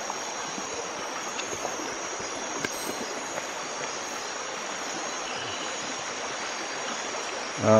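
Steady night-time rainforest ambience: river water flowing over stones under a continuous high-pitched insect chorus.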